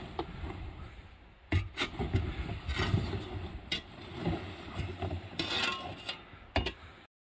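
Plastic kayak hull scraping and sliding over packed snow, pushed along in short jabs into the snow, with several sharp knocks and crunches among the rubbing.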